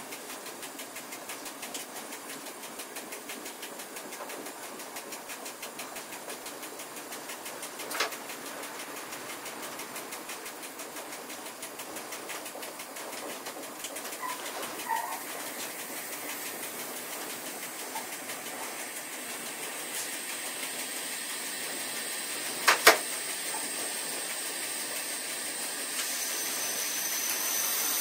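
Steady running noise of a double-deck push-pull passenger train heard inside its driving cab, with a sharp knock about a third of the way in and two close knocks about three-quarters through. The sound swells near the end with a rising high hiss.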